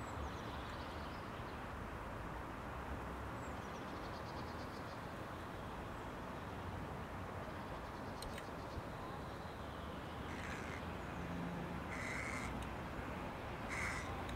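A crow cawing: three short calls about a second and a half apart in the last few seconds, over a steady outdoor background hiss.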